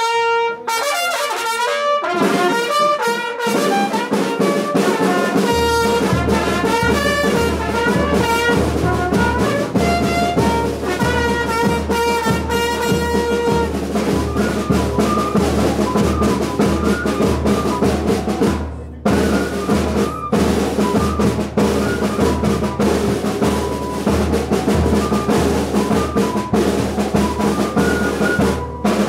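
Brass band music: trumpets carrying a melody, joined about five seconds in by a steady bass drum and snare beat, with a brief break about two-thirds of the way through.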